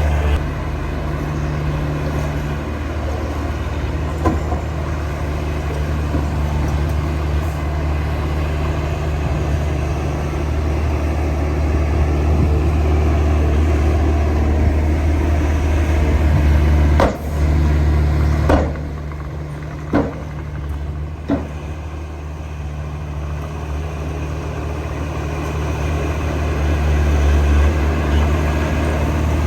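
Heavy diesel engine of earthmoving machinery running steadily under load, with a few sharp metal knocks a little past the middle; the engine eases off for a few seconds after them, then builds again near the end.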